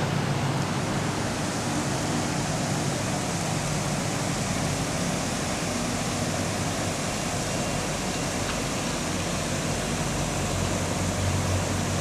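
Steady outdoor rushing noise, even throughout, with a faint low hum underneath.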